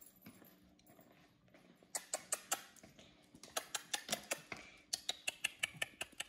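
Small dogs' claws clicking on a hard floor as they move about excitedly, a quick irregular patter of clicks that starts about two seconds in.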